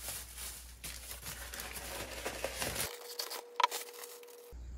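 Thin plastic shopping bag rustling and crinkling as it is handled and a pot is pulled out of it, with one sharp click about three-quarters of the way through.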